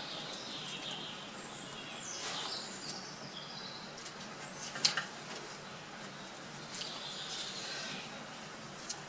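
Small birds chirping in short twittering phrases that rise and fall in pitch, over a steady low background hum. A single sharp click of hand work on the metal valve chest comes about halfway through.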